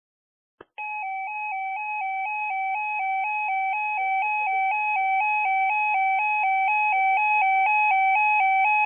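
Electronic emergency alert tone warbling steadily between two pitches about twice a second, starting with a click just under a second in. Right at the end it changes to a steady single higher tone, the 1050 Hz NOAA Weather Radio alert tone that comes before a spoken weather message.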